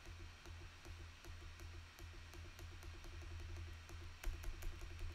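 Faint low hum with a fast, even pulsing, and a few sharp clicks from about four seconds in: computer mouse clicks as trail camera clips are switched.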